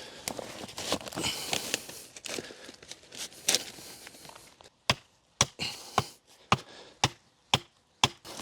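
Hand digging in a ditch: scraping and crumbling of soil, then seven sharp chopping strikes about two a second.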